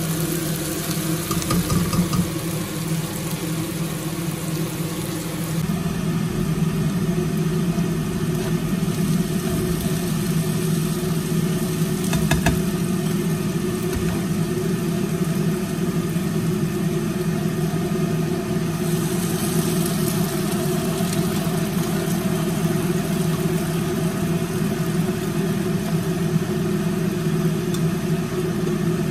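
A steady mechanical hum from a small motor running, with a few brief clicks and clatters over it.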